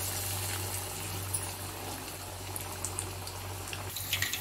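Masal vadai fritters deep-frying in hot oil in a pot: a steady bubbling sizzle. Near the end a metal spoon clicks against the pot as the fritters are turned.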